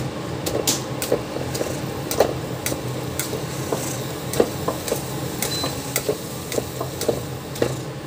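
Masher pressing and scraping cooked tomato masala in a pan, giving irregular soft clicks and knocks a few times a second over a steady low hum.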